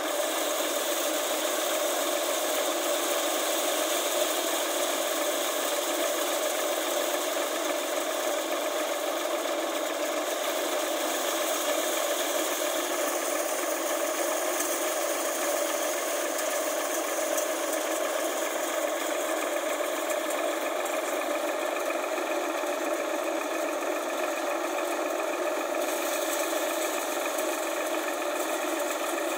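A Sonalika tractor's diesel engine drives a thresher, the two running together steadily as dried chickpea plants are fed in.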